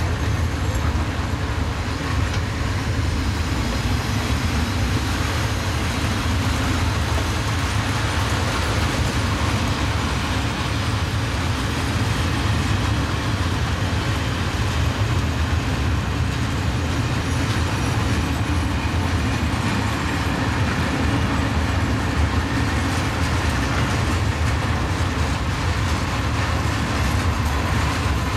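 Eaos four-axle open freight wagons rolling steadily past: continuous noise of steel wheels running on the rails.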